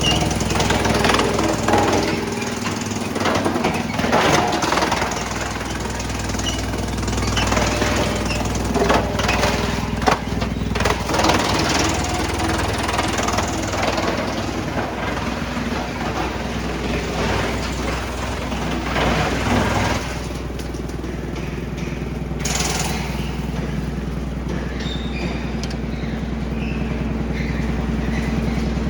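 Large mobile wood chipper running under load, its engine droning steadily while wood is fed through it, with irregular cracks and snaps as branches are shredded. About two-thirds through the cracking stops and the engine runs on steadily.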